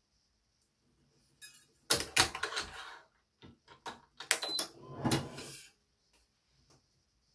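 Badminton racket stringing on a stringing machine: two short flurries of rapid clicking and rattling, the first about two seconds in and the second about five seconds in, as the string is worked and the machine's clamps and tensioner are handled.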